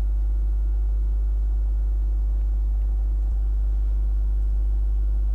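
Steady low electrical hum, a mains hum with a few fixed overtones, picked up by the recording setup.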